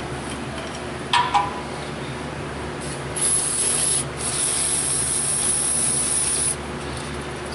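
Aerosol can of Wearever Gold brake parts cleaner spraying into a wiring connector: a short hiss about three seconds in, a brief break, then a longer hiss of about two and a half seconds. A steady low hum runs underneath.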